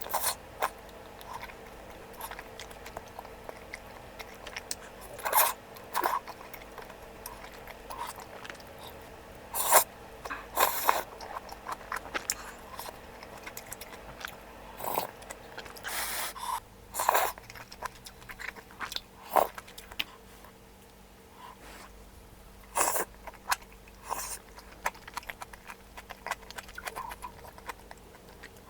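Close-up eating sounds of a person eating malatang: chewing and crunching, with irregular short clicks and scrapes of utensils against the bowl.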